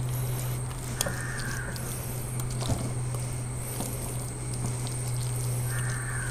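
Hands rubbing thick, wet masala paste over and into a whole raw chicken, with soft squelching and small clicks, over a steady low hum.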